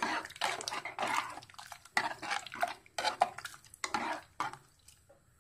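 Metal ladle stirring a thick coconut-milk vegetable stew in an aluminium pressure cooker, scraping and clinking against the pot in quick, irregular strokes, with a sharp knock at the start. The stirring stops about a second before the end.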